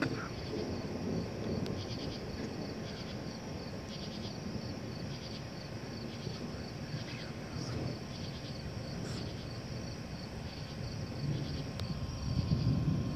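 Crickets chirping steadily in pulsing trills, over a low rumble that swells near the end.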